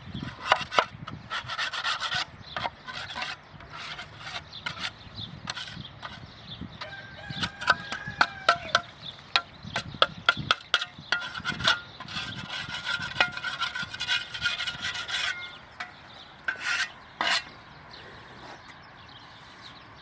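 Agricultural shovel being scraped clean: irregular rasping scrapes and sharp knocks, with a thin high tone at times.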